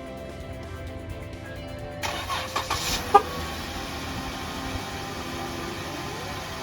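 2013 Jeep Wrangler JKU's 3.6 V6 engine starting on its remote start. About two seconds in, the starter cranks briefly, with a loud click, and the engine catches and settles into a steady idle.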